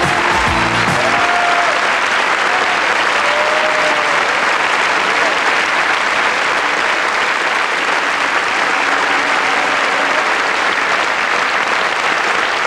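A large theatre audience applauding steadily after a song, with the orchestra's last notes dying away about a second in.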